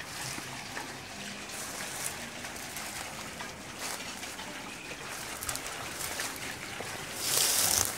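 Water trickling and splashing onto a water wheel, a steady rush of falling water with a louder burst of hiss about seven seconds in.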